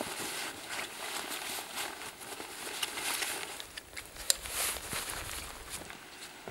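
Rustling and handling of a backpack and its straps, with a sharp click about four seconds in as a plastic side-release buckle on the hip belt is snapped shut.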